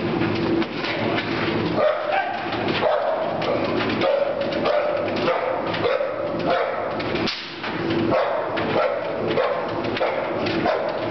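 American pit bull terrier barking over and over in quick succession, a dog being worked up by a helper during bite training.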